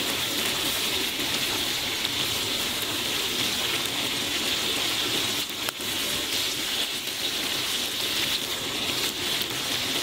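Pieces of crab deep-frying in a wok of hot oil over high heat: a steady, even sizzle.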